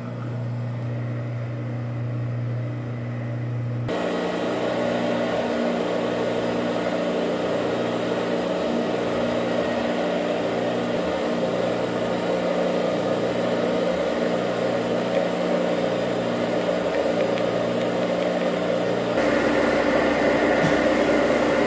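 Carpet-cleaning extraction machine running, a steady mechanical hum; near the end it turns louder and hissier.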